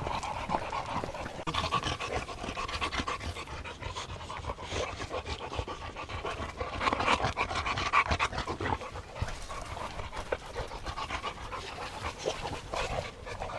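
Boxer dogs panting, a continuous rapid rough breathing.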